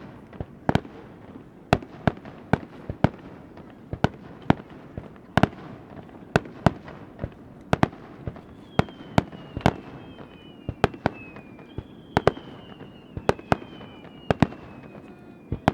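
Aerial fireworks shells bursting in a fast, irregular series of sharp bangs, several a second. From about eight seconds in, several overlapping high whistles fall slowly in pitch among the bangs.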